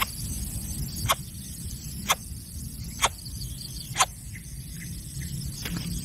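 Greater coucal chick giving short, sharp squeaks, about one a second, five in all, with a few fainter ones after, over a steady low rumble.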